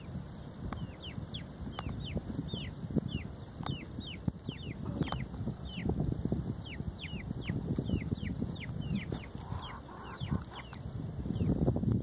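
Chickens: a steady string of short, high, falling peeps, two or three a second, with a few soft, low clucks about ten seconds in, over low rumble and rustle.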